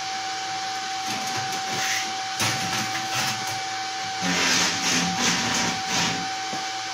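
Steady whir of a welding machine's cooling fan, with a constant tone, under a few light knocks of the MIG torch and a steel test coupon being handled on a steel bench.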